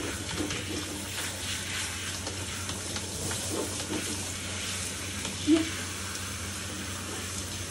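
Steady crackly hiss of water and wet hands scrubbing lather through a dog's soaked coat in a bathtub. A brief, louder low sound comes about five and a half seconds in.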